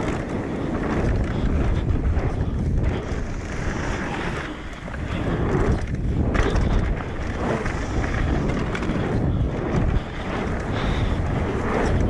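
Wind rushing over the microphone and tyres rolling on a dirt trail as a Haibike AllMtn 3.5 e-mountain bike descends fast, with occasional knocks from the bike.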